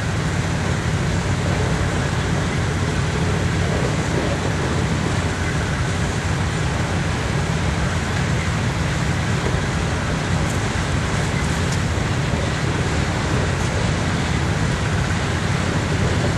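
Freight train's covered hopper cars rolling along the rails: a steady low rumble and rushing noise.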